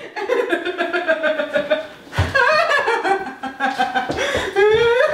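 People laughing, in short repeated bursts of voiced laughter.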